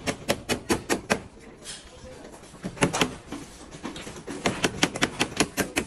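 Hammer striking wooden stair formwork in quick runs of sharp blows, about four or five a second, with a pause around the middle and a denser run near the end.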